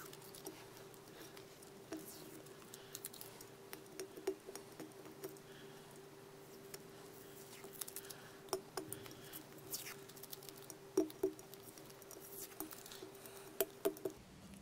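Masking tape being picked and peeled off a glazed porcelain vase with the fingers: faint scattered clicks and crackles, a few sharper ones, where the tape is stuck in places by the clear Hxtal epoxy. A steady faint hum sits underneath.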